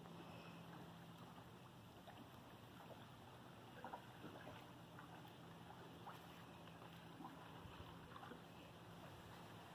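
Near silence: faint lapping and dripping water with scattered small splashes, over a low steady hum.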